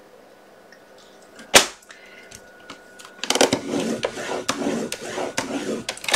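A paper trimmer's scoring blade scoring cardstock: one sharp click about one and a half seconds in, then from about three seconds a scraping run of the blade along the track, broken by many small clicks, lasting about three seconds.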